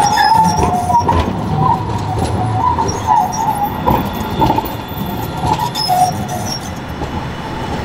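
RET Citadis low-floor tram passing close by and pulling away, its running gear rumbling with a wavering squeal from the wheels on the curved track. The sound eases off in the second half.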